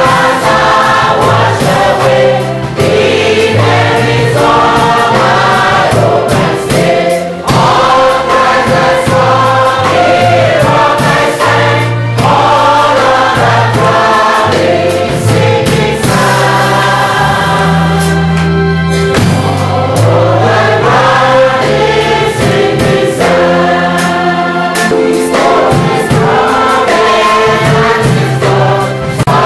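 Church congregation singing a hymn together with a band, a steady bass line and drums under many voices.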